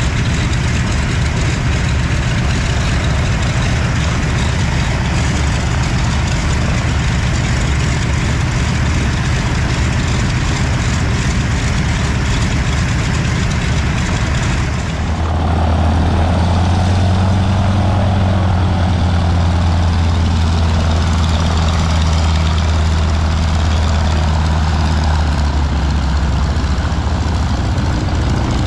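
Ford Tri-Motor's three radial engines running at low power with a steady drone. About halfway through the sound grows louder and deeper as the plane swings around to taxi.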